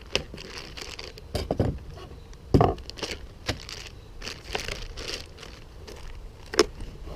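Hand tools being handled in a tool case: a run of clicks and clattering knocks with some rustling, the loudest knocks about two and a half seconds in and again near the end.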